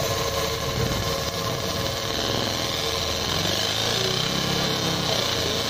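Fiber laser marking machine running while it marks a metal plate: a steady machine hum and buzz with a few held tones and no breaks or sudden sounds.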